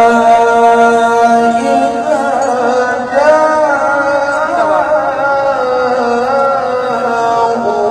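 A man's voice through a microphone chanting a Qur'an recitation (tilawah) in one long melodic phrase: held notes, with wavering ornamental turns in pitch through the middle.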